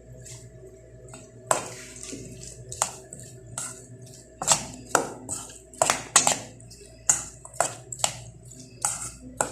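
A spoon clinking and scraping against a bowl while cut fruit is stirred together with honey, in a dozen or so irregular sharp knocks, starting about a second and a half in.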